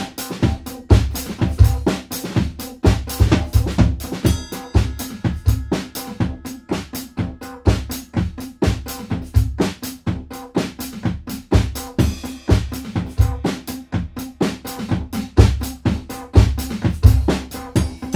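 Drum kit played in a busy, continuous pattern of bass drum, snare and rim hits, over a steady low held tone.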